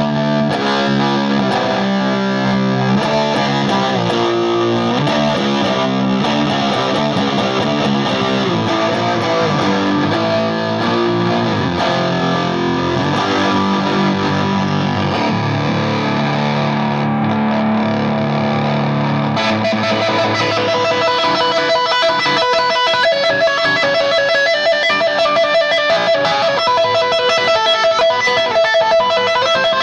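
Electric guitar played through a Volition Amps Vintage Fuzz pedal into an amp's clean channel, giving a distorted fuzz tone. It starts with held low chords and notes, then about two-thirds of the way through switches to quick, higher picked notes.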